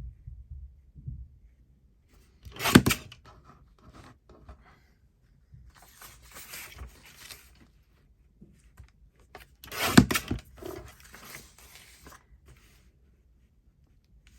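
Paper edges being trimmed by hand: two loud, short paper strokes, about three seconds in and about ten seconds in, with quieter paper rustling and handling between them.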